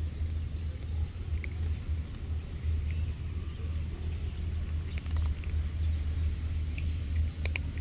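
A steady low rumble throughout, swelling and easing, with a few faint high bird chirps and a couple of sharp clicks near the end.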